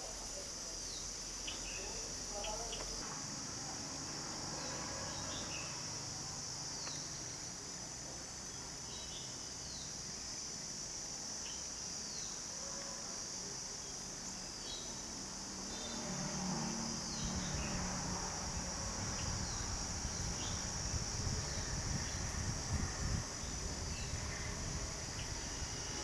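Steady high-pitched insect chorus, crickets or cicadas, with a short falling note repeating about every two seconds. A low rumble joins in from about two-thirds of the way through.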